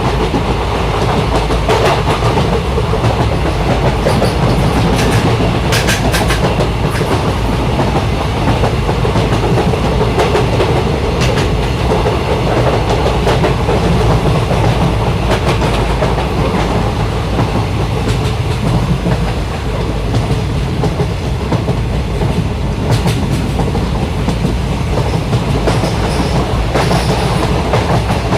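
Passenger train running along the track, heard from inside a coach by the window: a steady low rumble of the wheels with rhythmic clickety-clack over the rail joints, and brief louder clatters a few seconds in and again past the middle.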